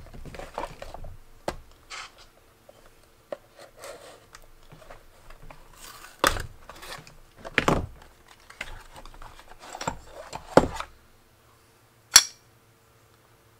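Cardboard box of a boat-prop hardware kit being opened by hand: the flaps are pulled and torn open and the parts are taken out and set down, with rustling and several sharp clicks and knocks a second or two apart.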